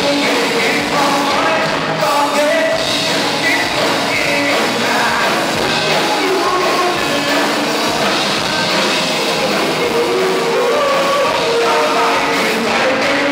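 Rock music with a singing voice, loud and steady.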